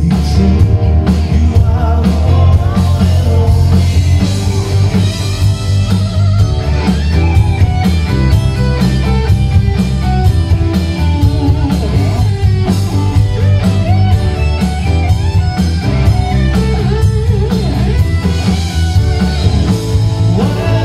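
Live rock band playing loud: distorted electric guitar, keyboards and a drum kit, with a male lead vocal over a steady beat.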